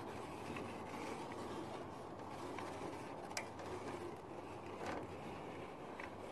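Caulking gun being worked to lay a bead of sealant on metal roofing: a few light clicks from the gun over a faint, steady background hum.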